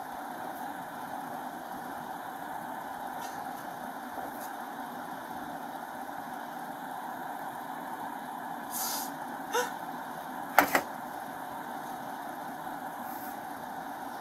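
Vehicle engine idling with a steady hum. About two-thirds of the way through come a few short, sharp clicks, the loudest a quick double click.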